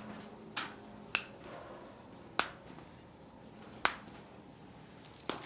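Joints cracking under a chiropractor's manual adjustment: five short, sharp pops at uneven intervals.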